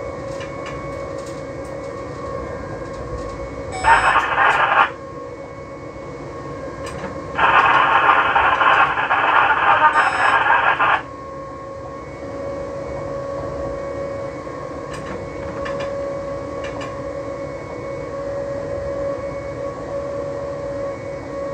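Steady running noise of an electric train heard from the driver's cab, with a held tone. It is broken twice by loud cab radio transmissions: a short one about four seconds in and a longer one from about seven to eleven seconds.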